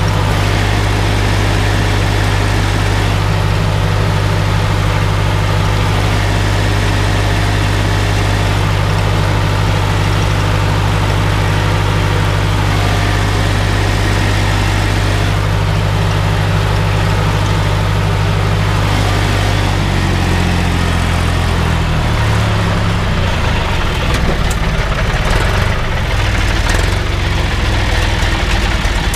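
Old John Deere tractor's diesel engine running steadily while pulling a skim plough through stubble. About twenty seconds in the engine note shifts and turns uneven and rougher.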